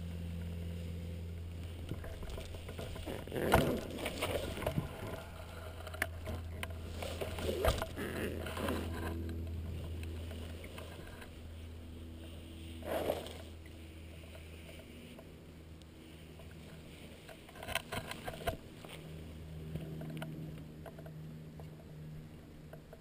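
Steady low rumble of wind on the microphone, with a few knocks and rustles about four, eight, thirteen and eighteen seconds in.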